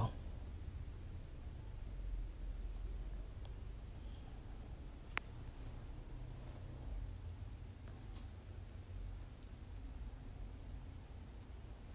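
Steady high-pitched electronic whine with a low hum underneath: background noise of the recording setup. A single faint click about five seconds in.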